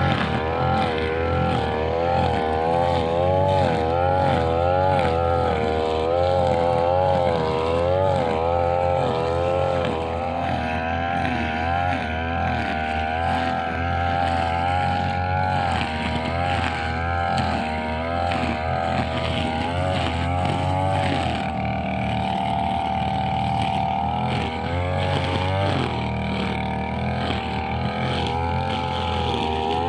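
Brushcutter engine running at working speed, its pitch wavering up and down, with a steadier stretch about two-thirds in.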